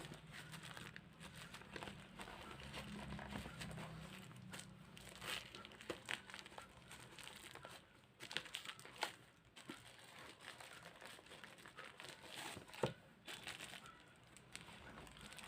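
Packaging being handled and opened: crinkling and rustling, with scattered light clicks and taps.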